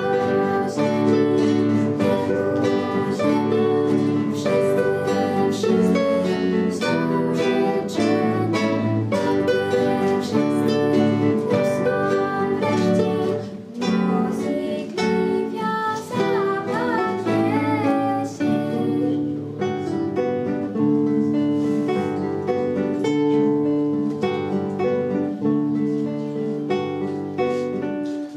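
A trio of classical guitars playing a Christmas carol together, plucked notes over chords.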